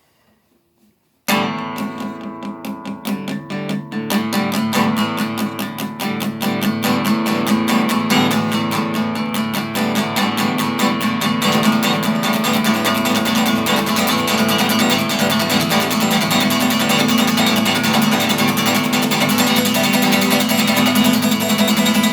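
Guitar strummed in fast, even strokes, starting suddenly about a second in and growing louder and denser a few seconds later.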